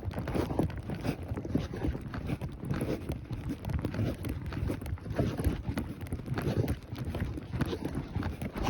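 Hoofbeats of a ridden horse: a steady, continuous run of dull thuds as it walks on.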